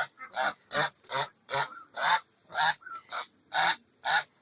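Domestic duck quacking in a steady series of short, loud calls, about two a second.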